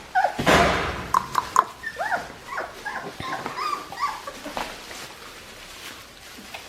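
Young Australian Shepherd puppies whimpering and squeaking in short, high cries that rise and fall, thick for the first few seconds and thinning out after about four and a half seconds. A brief rustling burst about half a second in is the loudest sound.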